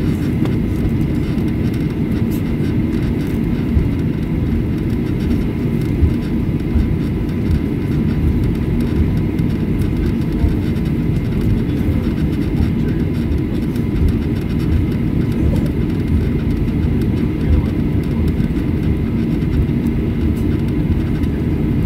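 Cabin noise of a Boeing 737-800 taxiing: a steady low rumble from its CFM56-7B turbofan engines at low power, with a faint high whine held at a steady pitch.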